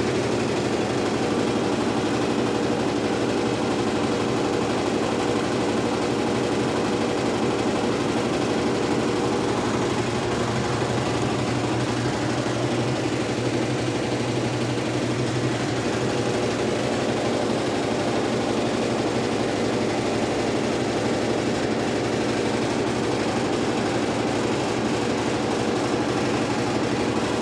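Electrolux Turbo Economia LTE12 top-loading washing machine running, a steady motor hum with vibration that holds even throughout.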